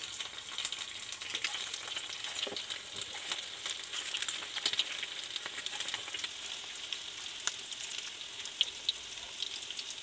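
Balls of chopped-egg and gram-flour batter deep-frying in hot oil in a steel pan: a steady sizzle with frequent crackles and pops as more balls go in.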